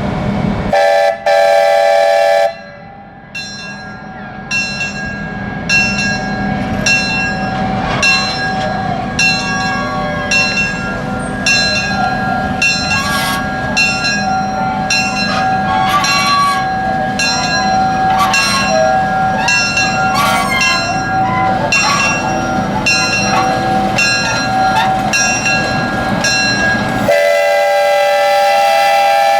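Passing excursion train sounding its horn, a short toot and then a longer blast about a second in. This is followed by a long stretch of steady bell-like ringing struck about once a second, and another long horn blast near the end.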